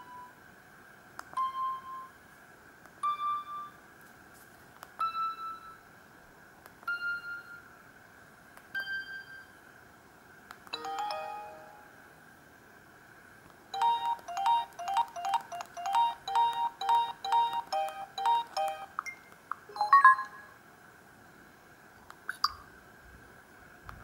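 Samsung GT-C3212 mobile phone keypad tones: a short electronic beep for each key pressed, about every two seconds, each one a step higher in pitch than the last. In the second half comes a quick run of about twenty short beeps in a tune-like pattern, then a few more beeps and a click near the end.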